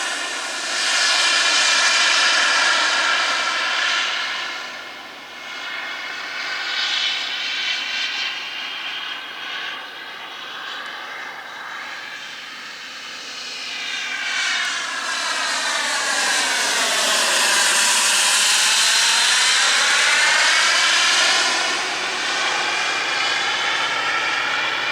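JetCat P100RX model turbine of an RC scale F-15 jet in flight: a steady jet hiss that fades and swells as the plane moves around the sky. It is loudest on a close pass about two-thirds of the way through, where the whoosh sweeps down in pitch and back up.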